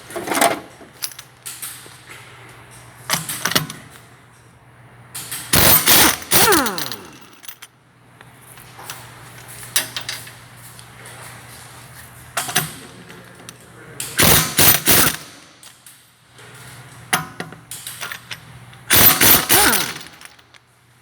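Shop tool work: several short bursts of loud rattling and clicking over a steady low hum. One burst ends in a falling whine.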